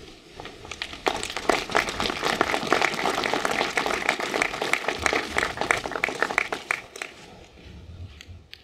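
Audience applauding, rising about a second in and dying away near the end.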